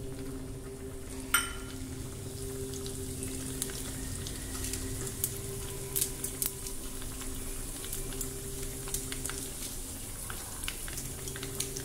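Mustard and cumin seeds sizzling in hot oil in a small tempering pan, with scattered sharp pops, the loudest about a second and a half in, over a steady low hum. It is the tempering (tadka) stage, the seeds spluttering in oil that has been heated first.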